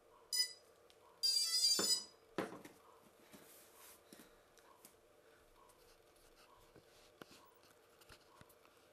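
Power-up beeps of a DJI F450 quadcopter's electronics as the battery is connected. A short beep comes first, then about a second in a louder, quick run of electronic tones lasts under a second, typical of the speed controllers' start-up tones. Two sharp knocks follow, then a few light ticks.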